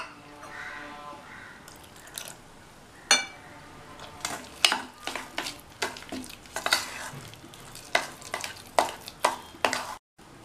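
Metal spoon stirring a thick semolina, flour and sugar batter in a stainless steel bowl, scraping and clinking irregularly against the bowl's sides. A sharp clink about three seconds in, then frequent scrapes and taps.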